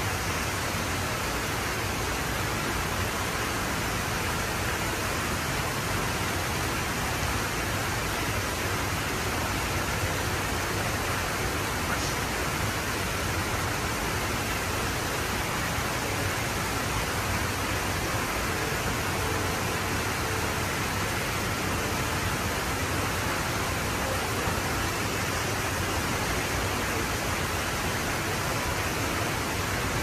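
Indoor artificial waterfall running: a steady, even rush of falling water.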